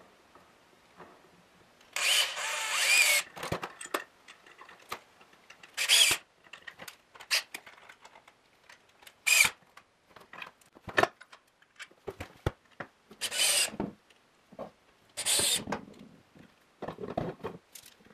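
Corded electric drill run in short bursts, about five of them with the first the longest, as a stair-rail bracket is fastened to the handrail. Clicks and knocks of handling come between the bursts.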